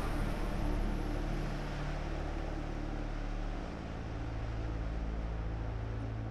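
A deep, steady rumbling drone of held low tones with a rushing hiss over it; the low tones shift a little about three and a half seconds in.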